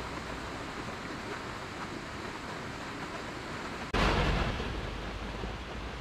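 Stream water rushing steadily. About four seconds in, a sudden louder rush starts and fades back over a second or so.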